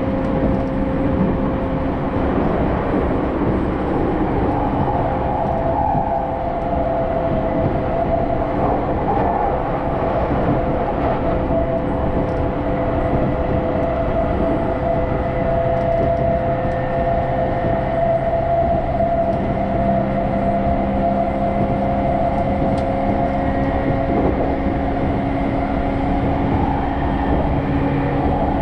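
Inside the carriage of a moving commuter electric train: a steady rumble of the running train, with a few steady humming tones over it.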